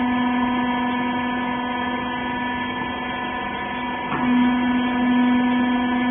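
Hydraulic power unit of a rags baler press, its electric motor and pump running with a steady hum. A brief knock comes about four seconds in.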